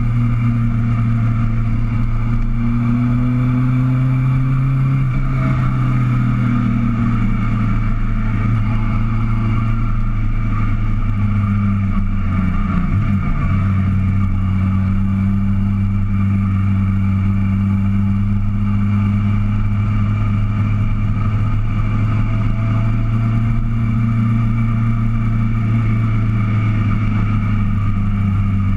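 Motorcycle engine running under way, heard from a camera on the bike. Its note rises over the first few seconds, changes pitch about twelve seconds in, then holds steady.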